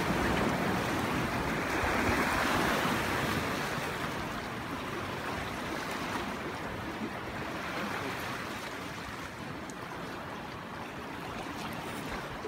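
Small sea waves washing against a rocky shore: a steady rushing noise, louder for the first three seconds or so and then settling.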